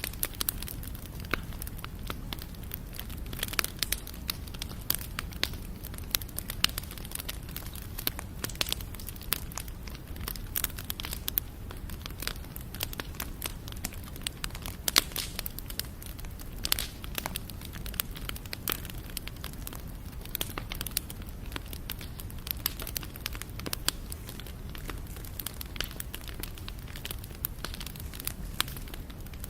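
Wood fire (bonfire) burning and crackling: a steady low rumble of the flames with frequent sharp, irregular snaps of burning wood.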